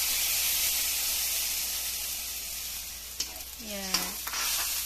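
Hot wok hissing and sizzling as mussel broth is poured over sautéed mussels, the sizzle slowly dying down. A metal ladle then scrapes and taps against the wok in a few sharp clicks near the end.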